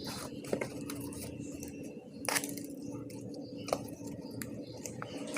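Faint handling noise: a few short soft clicks over a steady low hum, the loudest about two seconds in.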